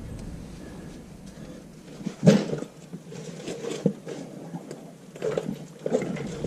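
Irregular clunks and knocks, the loudest about two seconds in, as a truck's front axle shaft is tugged and wiggled at its U-joint to work it out of the axle housing.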